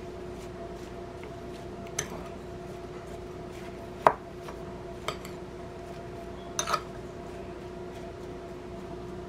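Metal spoon stirring sliced strawberries and sugar in a small glass bowl, clinking against the glass a few times, loudest about four seconds in. A steady low hum runs underneath.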